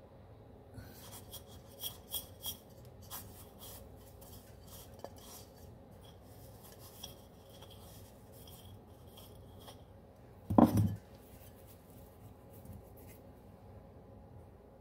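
Sesame seeds rustling and crackling as a sticky dough ball is rolled through them in a ceramic bowl, with scattered light ticks. A short dull knock past the middle is the loudest sound.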